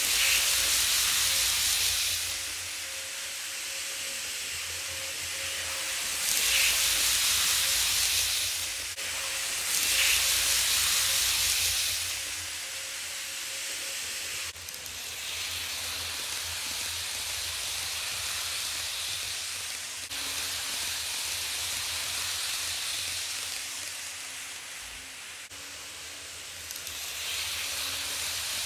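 Kato N-scale ACS-64 locomotive and Amfleet cars running at full speed on Kato Unitrack. The wheels make a steady high hiss that swells louder several times as the train passes close by, over a faint steady whine.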